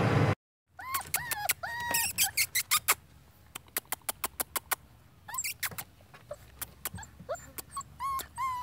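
Electronic intro music cuts off within the first half second. Then Rottweiler puppies about a month old whine and squeak in short high calls that rise and fall, in several bursts, with many short clicks among them.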